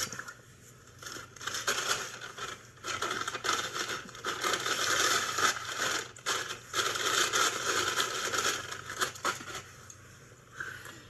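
Paper sandwich wrapper crinkling and crumpling in someone's hands, on and off.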